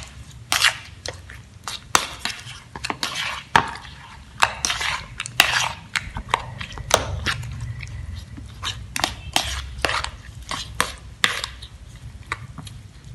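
Metal spoon stirring a wet mix of beaten egg, shredded chicken and sliced sausage in a bowl, clicking and clinking irregularly against the bowl's sides several times a second.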